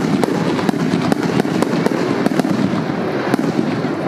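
Fireworks: a shell bursts with a sharp bang at the start, then a dense rumble runs on with scattered sharp pops and crackles.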